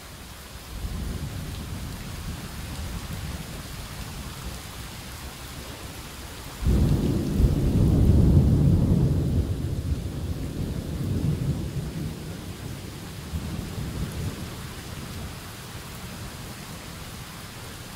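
Heavy rain falling steadily, with a low rumble of thunder that swells suddenly about seven seconds in and fades away over the next several seconds.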